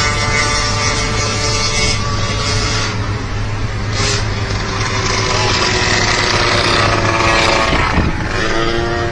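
Engine and road noise heard from inside a moving car at highway speed, with a steady engine hum over tyre and wind noise. Near the end the hum drops in pitch and rises again, with a brief knock.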